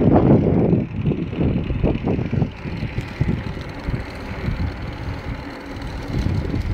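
Wind buffeting the microphone of a camera on a bicycle moving at about 23 km/h: a low, gusty rumble, loudest in the first second.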